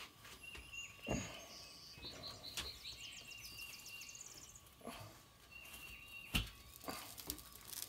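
Small birds chirping and trilling in repeated short phrases, with a few light knocks and clicks from handling; the sharpest knock comes about six seconds in.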